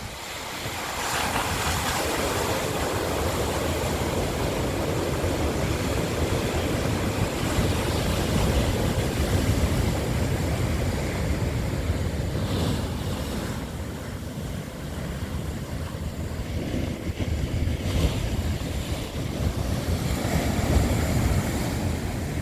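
Rough sea surf breaking against a boulder shoreline, waves crashing and washing through the rocks in repeated surges, with gusting wind buffeting the microphone.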